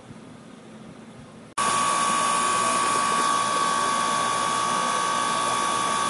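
York outdoor heat pump unit running loud, mostly compressor noise along with its condenser fan: a steady hum with a high, even whine. It starts suddenly about a second and a half in, after faint background hum.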